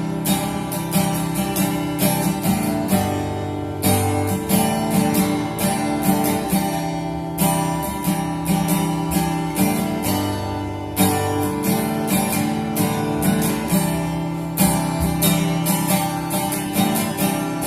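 Instrumental passage of a pop song led by strummed acoustic guitar in a steady rhythm, with sustained bass notes.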